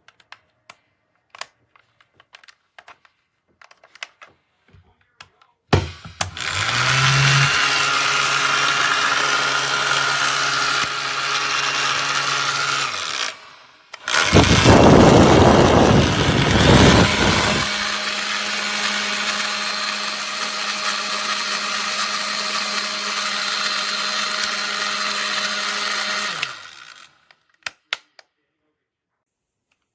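Conair InfinitiPro 1875 W hair dryer switched on about six seconds in, running with a steady motor hum and rush of air. It cuts out briefly before the middle, comes back with a louder rush of air for a few seconds, then settles to a steady hum at a different pitch before switching off near the end. Light clicks of handling come before it starts.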